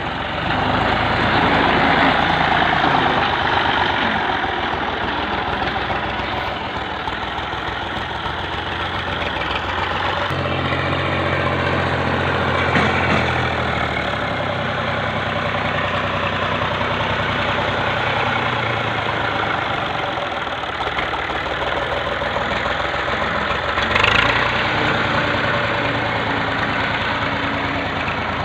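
Massey Ferguson 135 tractor engine running steadily while working a reaper, its note shifting about ten seconds in and again near the end.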